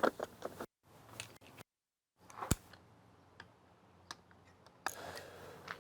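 Scattered light metallic clicks and taps of hands and tools working on an engine, with one sharp click about two and a half seconds in and a rustling rise of noise near the end. The sound drops out to dead silence twice, briefly.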